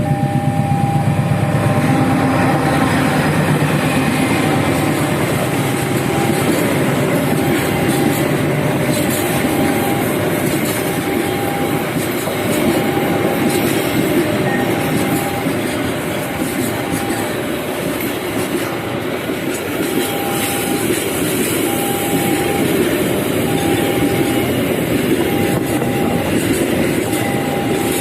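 A train rolling past, its wheels clattering and rumbling on the rails, with an electronic tone beeping on and off about once a second over it.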